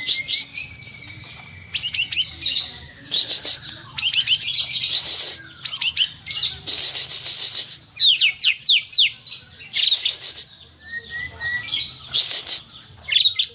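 A caged songbird singing in loud, rapid phrases of sharp downward-sweeping chirps alternating with harsh, scratchy rattles, with short gaps between phrases. A thin, steady whistle sounds at the start and again about 11 seconds in.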